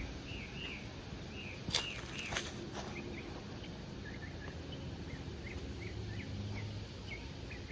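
Small birds chirping repeatedly over steady outdoor background noise, with a few sharp clicks or knocks about two seconds in.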